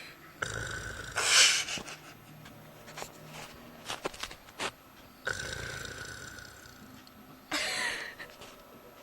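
A person snoring: two snore cycles about five seconds apart, each a drawn-out snore ending in a short, loud blast of breath, with a few faint clicks in between.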